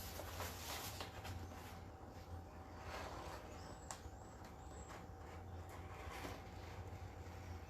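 Faint rustling and light knocks of items being handled, over a low steady hum.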